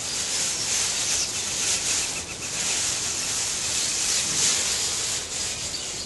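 Thin plastic bag crinkling and rustling steadily as it is handled and pulled off a wooden nest box, with a trapped house sparrow inside the bag.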